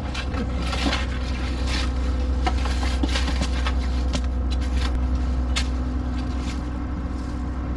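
Steady drone of a diesel excavator engine running, with repeated scrapes of shovels digging into soil and dry leaves during backfilling.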